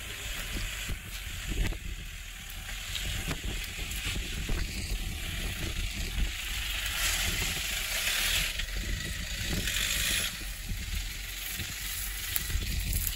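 Toyota Land Cruiser KDJ 120's diesel engine pulling the vehicle slowly up a steep dirt slope, its tyres crunching over loose dirt and stones. A hiss grows louder between about seven and ten seconds in.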